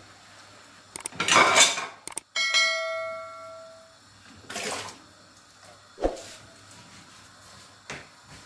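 Dishes being washed by hand: a metal dish is knocked and rings with a clear tone that fades over about a second and a half. Before and after the ring come two short noisy rushes of rinse water, and there are a couple of sharp knocks of dishes near the end.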